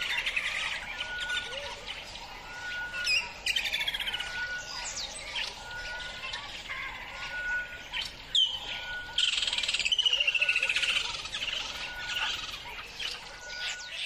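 A chorus of wild birds calling. One bird repeats a short, level whistle about once a second, and other birds give fast trills and sweeping chirps over it.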